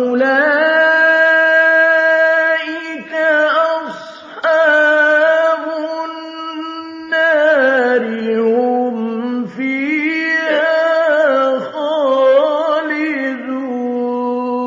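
A man chanting Quran recitation in the melodic tajwid style. One voice sings long held notes with ornamented turns, broken by a few short pauses between phrases.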